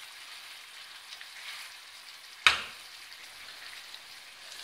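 Chicken pieces sizzling softly in a fry pan as they cook in their own released juices. About two and a half seconds in there is a single sharp clink as the glass lid is set back on the pan.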